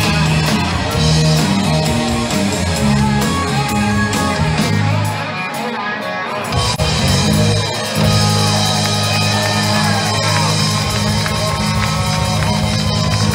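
Live rock band playing an instrumental passage on electric guitars, bass guitar and drum kit. The bass and drums drop away briefly around the middle, then the full band comes back in.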